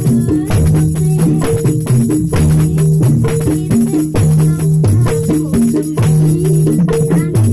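Javanese gamelan-style percussion ensemble playing: small kettle gongs strike short repeating pitched notes over a sustained low gong tone, with hand drums and jingling percussion beating a fast, busy rhythm.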